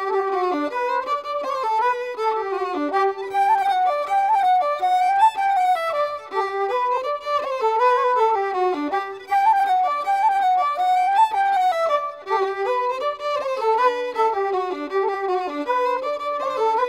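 Music: a fiddle playing a melody of quickly changing notes that step up and down.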